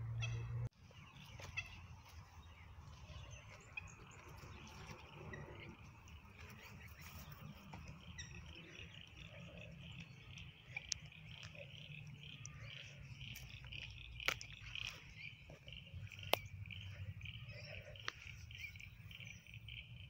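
Frog chorus: many frogs calling together in a steady, high-pitched chirring that grows fuller a few seconds in. A few sharp clicks come part-way through.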